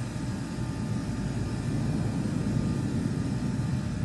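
Low, steady rumble of distant jet aircraft, swelling slightly toward the middle.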